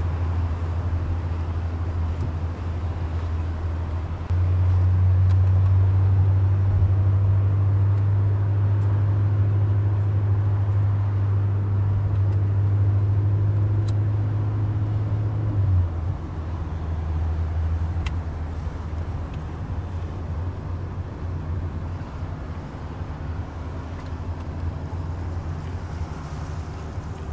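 Car engine and tyre noise heard from inside the cabin while driving: a steady low drone that gets louder about four seconds in and drops back at about sixteen seconds.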